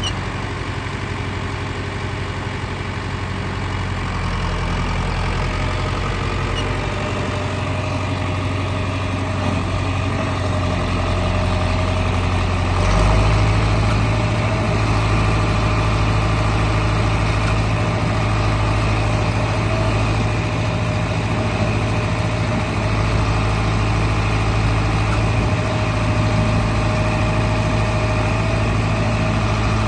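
John Deere 3020 tractor's four-cylinder engine running steadily, picking up a little in speed and loudness about halfway through.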